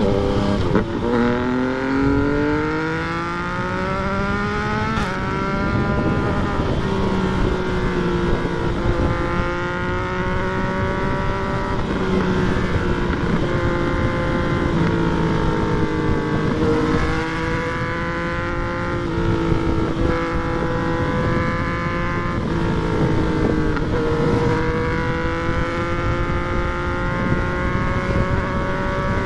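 Yamaha MT-09's three-cylinder engine under way, its pitch climbing as it accelerates over the first few seconds. It then holds a fairly steady note with a few brief dips, and rises again near the end, over a rush of wind noise.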